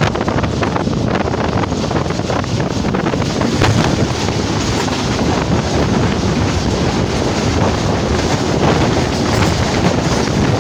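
Express passenger train running at speed, heard from on board at an open door or window: a steady rush of wind and running noise with a rapid clatter of wheels over the rails, while an oncoming train passes on the next track.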